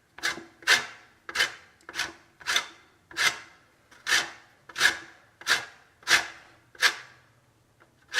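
Whole lemon rubbed over a fine grater to take off the yellow zest, in rasping strokes about one every two-thirds of a second.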